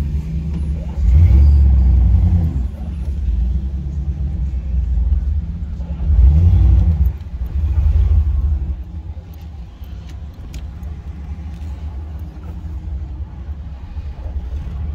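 Jeep engine heard from inside the cab as it drives through soft sand, with a deep steady rumble. It revs up in two stronger surges, about a second in and again around six seconds, then runs quieter and steadier through the second half.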